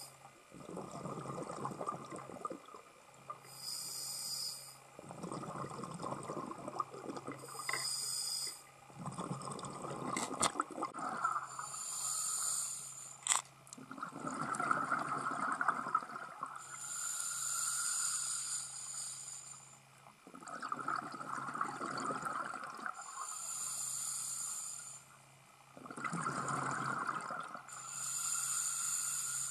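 Scuba diver breathing through a regulator underwater: each inhale is a hiss with a thin whistle, each exhale a rumbling burst of bubbles, in a slow cycle repeating about every four to six seconds. A single sharp click about halfway through.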